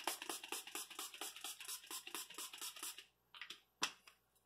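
Hydrating facial mist spray bottle being pumped rapidly, a quick run of short spritzes about six a second, stopping about three seconds in, followed by a few single spritzes near the end.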